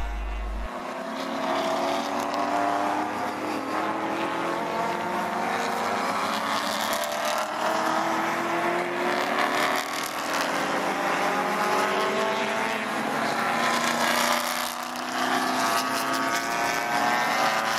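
A pack of 1960s touring race cars running through a corner, several engine notes overlapping and rising and falling in pitch as the cars come off the throttle and accelerate again.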